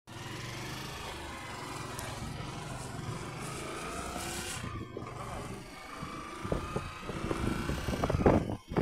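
Motorcycle engine running on the move, its pitch rising and then falling with speed. In the last couple of seconds, wind buffets the microphone in loud gusts.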